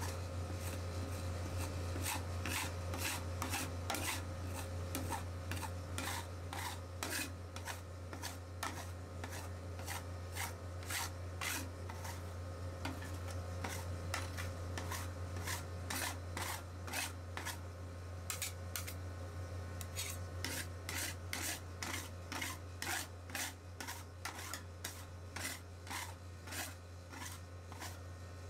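Metal spatula scraping over a thin layer of frozen Oreo ice cream on a stainless-steel cold plate, smoothing it flat in quick back-and-forth strokes, about one to two a second. A steady low hum runs underneath.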